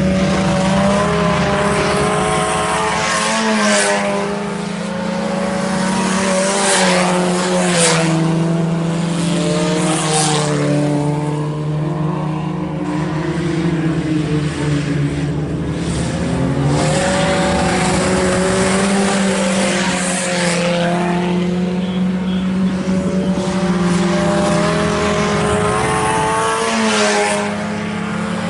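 A field of IMCA Sport Compact race cars running at racing speed, their four-cylinder engines revving up and down as they work around the track. Cars pass by now and then.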